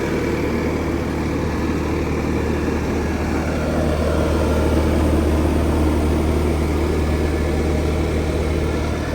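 Bobcat S650 skid steer loader's diesel engine running steadily, growing a little louder around the middle.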